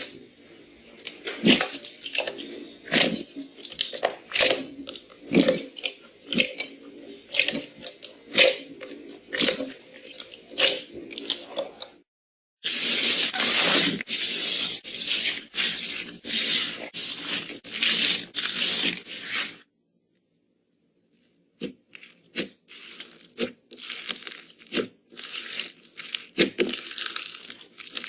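Slime being squeezed and pressed by hand, giving crunching, crackling pops. Three short takes follow one another with brief silent cuts between them: separate pops in the first, a denser, louder run of crackling in the middle, then separate pops again.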